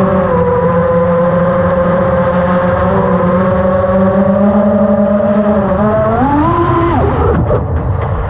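The high-pitched buzz of an FPV racing quadcopter's four Lumenier RX2206 2350KV brushless motors spinning DAL Cyclone 5050C props, as heard from the onboard camera. The pitch holds steady, then rises about six seconds in and drops off sharply a second later as the throttle comes down.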